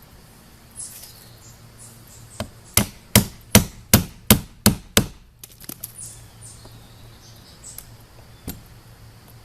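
Hammer blows, about eight sharp strikes in a row at roughly three a second, then a few faint light clicks.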